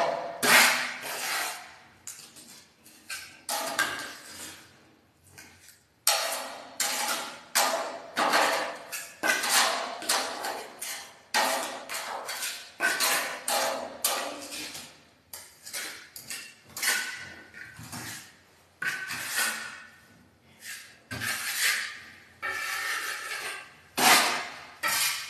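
Repeated rubbing strokes of a long-handled sponge float worked over a wall of fresh fine finishing plaster, about one or two scraping passes a second. The strokes are sparse for the first few seconds and steady after that.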